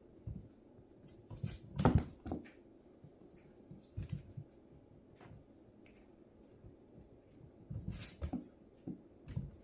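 A small puppy playing with a rubber ball on a raised mesh dog cot: scattered thumps, taps and scrabbling of paws and ball, the loudest about two seconds in and another cluster near eight seconds.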